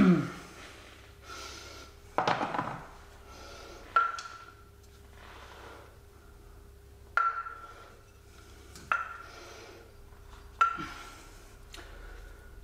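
Steel cups from a press-and-pull sleeve kit knocking against metal as they are taken out and tried for size, about six sharp clinks, each ringing briefly at the same pitch.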